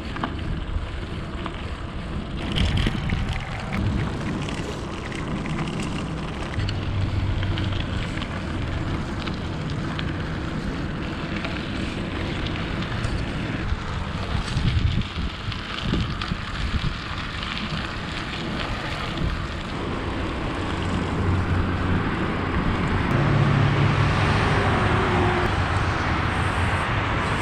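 Riding noise from a Giant mountain bike on a dirt and gravel road: knobby tyres crunching over loose stones, with wind rushing over the microphone. The steady noise grows somewhat louder near the end.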